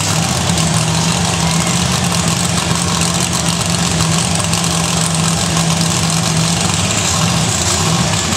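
Monster truck engine idling steadily, with a deep, even rumble that holds without revving.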